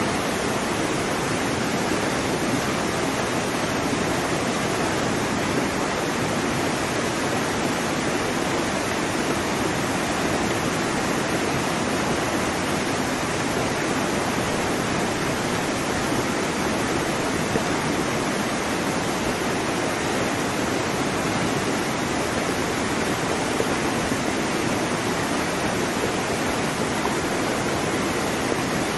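Steady rushing of water: an even, unbroken wash of noise with no rise and fall of separate waves.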